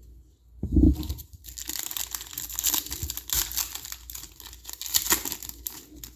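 A trading card pack wrapper from 2021 Panini Chronicles football being torn open and crinkled, with dense crackling for several seconds. There is a dull thump about a second in.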